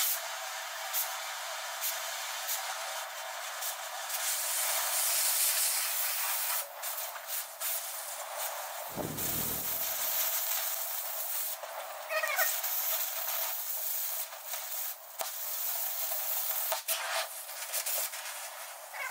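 Oxy-fuel cutting torch hissing steadily as it burns through a steel disc-harrow part, with scattered pops and crackles from the sparks and slag blowing out of the cut. A brief falling squeal comes about twelve seconds in.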